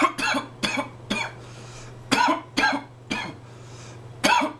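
A man coughing in a fit of about eight short coughs after inhaling a dab of cannabis concentrate vapour from a glass water pipe, which leaves an afterburn in his throat.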